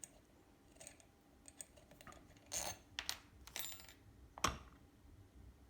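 Scattered light clicks and taps of small metal parts being handled, as a mini lathe's back cover and its small screws are worked loose, with one sharper knock about four and a half seconds in.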